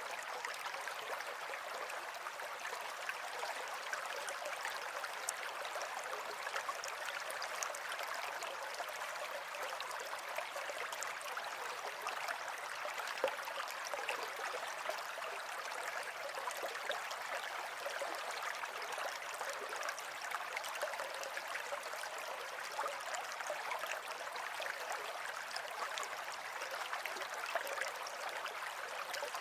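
Running water, like a stream, flowing steadily with fine splashing and trickling, even throughout.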